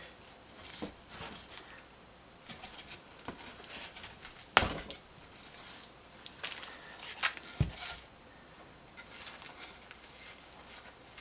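Hay twine rustling and scraping as it is wrapped and pulled tight around a forged billhook's handle, with light scattered clicks. A sharp knock comes about halfway through and a duller thump a few seconds later.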